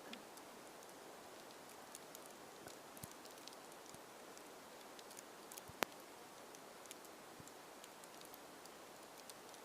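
Faint steady hiss with scattered light ticks and one sharper click about six seconds in.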